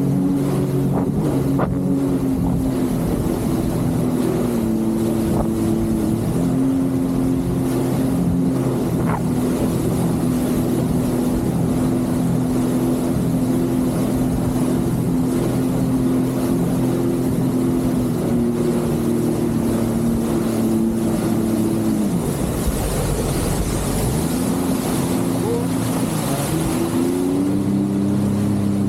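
Jet ski engine running at a steady throttle. Near the end the revs fall away and then climb again as the throttle is opened.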